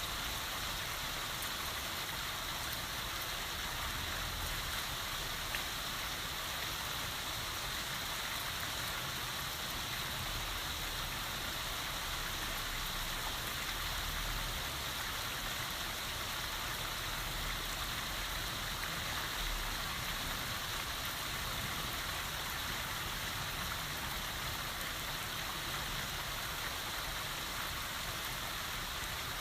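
Rain falling steadily, an even, unbroken hiss with no thunderclap.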